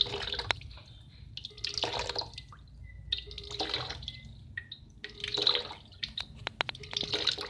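Water gurgling and splashing in repeated bursts, about one every two seconds, with sharp drips and plinks between them.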